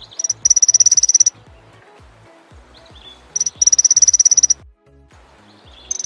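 Red-billed firefinch calling: two rapid, high-pitched trills about a second long, a few seconds apart, with a third beginning at the very end.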